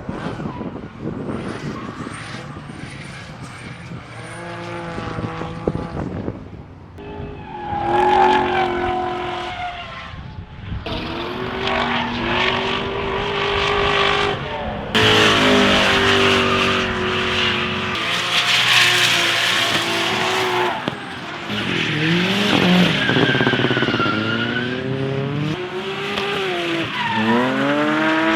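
Race cars sliding through the track with tyres squealing, their engines revving up and down as the drivers work the throttle and shift gears, several passes one after another. The tyre noise and engine are loudest in the second half.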